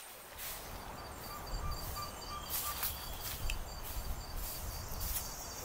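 An insect calling in a steady high-pitched pulsing chirp, about four pulses a second, starting about a second in, over a low rumble and a few faint clicks.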